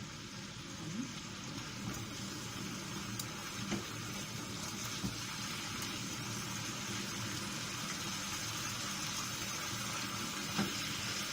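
Entrecôte steak sizzling steadily in a frying pan of ghee and oil, with a couple of faint knocks.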